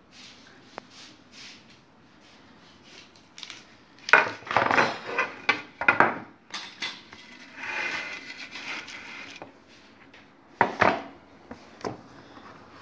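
Kitchen handling noise: a metal baking tray and utensils clattering against a wooden board in bursts about four to six seconds in and again near eleven seconds. Between them comes a softer scraping.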